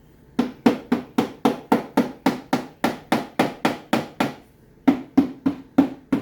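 Rapid, evenly spaced tapping blows, about four a second, driving a wooden plug into a walnut slab during a tight dry fit; each knock has a short hollow ring. The taps stop briefly about four seconds in, then another quick run of five follows.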